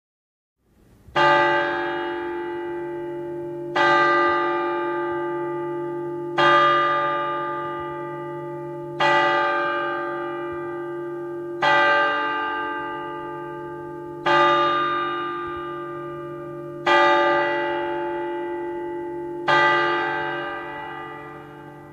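A single bell tolling eight times at an even pace, about once every two and a half seconds. Each stroke rings out and slowly fades as the next one comes in.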